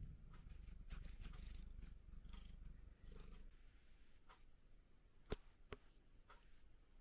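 Domestic cat purring faintly while being petted, a low steady rumble that fades out after about three seconds. Two sharp clicks near the end.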